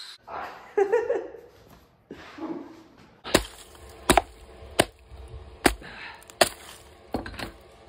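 A hammer striking broken concrete in a hole in a floor slab, breaking it out to reach a pipe beneath. About seven sharp blows come roughly every three-quarters of a second, starting about three seconds in, after a few softer knocks.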